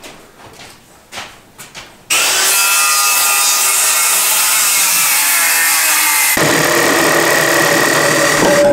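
A power tool starts abruptly about two seconds in and runs loudly and steadily. About six seconds in its sound changes and grows deeper. Before it starts there are faint knocks and scrapes.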